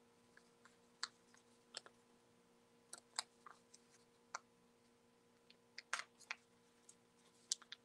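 Faint, irregular small clicks and light rustles of straight pins being pushed by hand through a paper pattern and two layers of felt.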